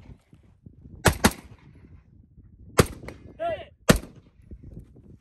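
Semi-automatic AR-style rifle firing at steel targets: a quick pair of shots about a second in, then two more single shots about a second apart. A brief pitched sound comes just before the last shot.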